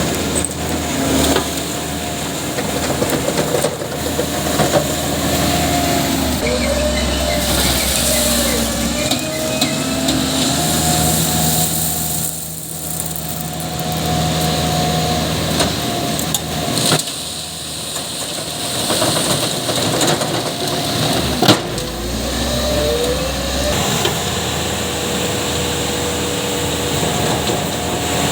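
Diesel construction machinery running steadily, its pitch rising and falling several times as the engine revs, with a few sharp knocks.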